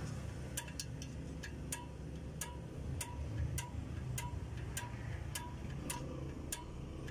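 Rear drum brake adjuster of an Isuzu Forward truck being pried through the backing-plate hole, clicking tooth by tooth about twice a second, each click with a brief ring. Each click is the adjuster advancing a notch to set the brake shoes out toward the drum.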